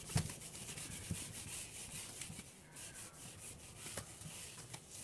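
Writing strokes: a pen scratching across a writing surface in faint, irregular short strokes.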